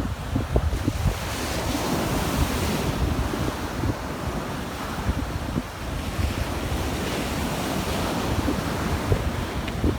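Sea waves washing on a beach, with gusting wind buffeting the microphone.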